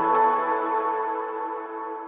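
Background music: sustained ambient synth chords dying away.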